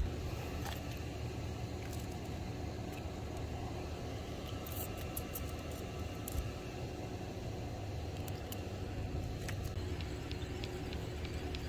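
Steady low rumble of wind on the microphone, with a few sharp clicks and ticks about five and six seconds in as fishing tackle is handled with pliers.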